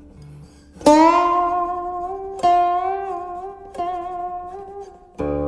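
Guqin played slowly: four plucked notes about a second and a half apart, each left to ring and fade, the pitch wavering slightly as it sustains. The first note, about a second in, is the loudest.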